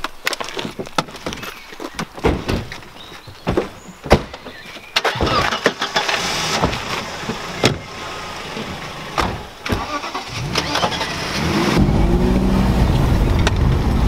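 Sharp knocks of car doors being shut, then car engines starting and running. From about twelve seconds in, an engine gets louder, its pitch rising and falling as it revs.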